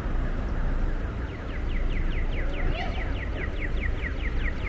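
Audible pedestrian crossing signal chirping rapidly, about five short falling chirps a second, starting about a second in, over the low rumble of street traffic.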